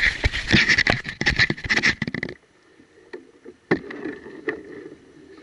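Sounds of a tiny wooden boat with an electric trolling motor on the water: irregular splashes and knocks over a steady high whine for about two seconds, then a sudden drop to a much quieter stretch with a low hum and a few scattered knocks.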